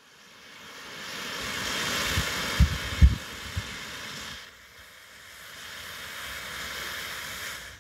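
A small black-powder-type rocket motor (blend-and-press propellant of potassium nitrate, charcoal, sulfur, KHP and a little potassium perchlorate) static-fired on the ground, its exhaust giving a rushing hiss. The hiss swells over the first couple of seconds, with two low thumps near three seconds in. It drops off about four and a half seconds in, and a softer rushing follows before stopping abruptly.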